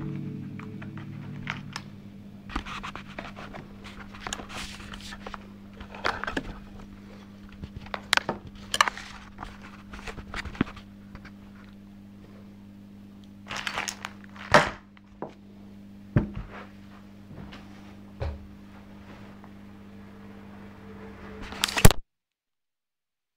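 A guitar chord rings out and fades over the first two seconds, then scattered clicks, knocks and rustles of handling over a steady low hum. The sound cuts off abruptly near the end.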